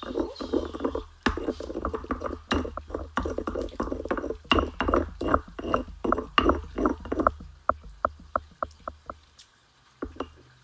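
Stone pestle grinding and mashing roasted tomatoes and chiles in a volcanic-stone molcajete, with quick repeated scraping and knocking strokes. After about seven seconds the strokes turn into lighter, sparser taps, then stop.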